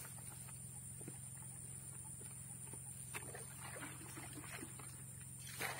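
Black plastic bucket dipped into a water-filled ditch to fetch water for mixing pesticide: irregular sloshing and gurgling about halfway through, then a louder splash near the end.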